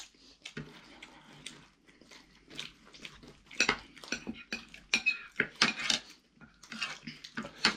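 Knife and fork clinking and scraping against a plate while eating, a run of irregular sharp clicks that grows busier in the second half.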